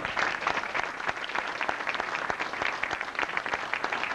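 Audience applauding: many people clapping together in a steady round of applause.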